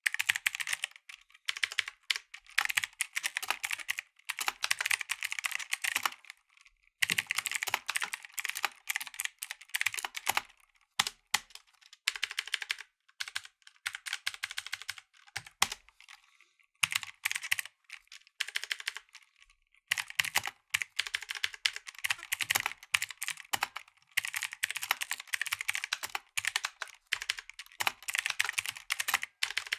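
Mechanical keyboard with clicky blue switches being typed on fast, a dense run of sharp key clicks broken by brief pauses every few seconds.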